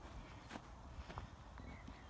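Footsteps walking along a gravel and grass track: a few faint steps over a low steady rumble.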